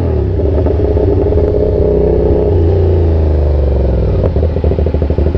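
CFMOTO 450SR's parallel-twin engine running on the move, its revs falling over the first two or so seconds as the bike slows. It then holds a lower, steady pitch, turning to a rapid pulsing beat near the end.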